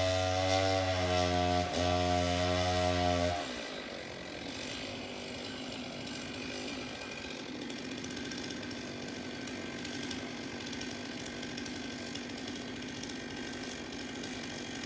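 A loud, deep, steady drone cuts off abruptly about three seconds in. A distant chainsaw then runs steadily as a tree-removal crew cuts down a palm tree.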